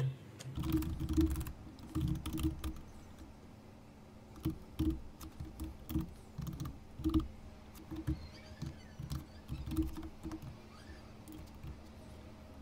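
Typing on a computer keyboard: runs of quick keystroke clicks in bursts, with a short lull about three seconds in and sparser keys near the end.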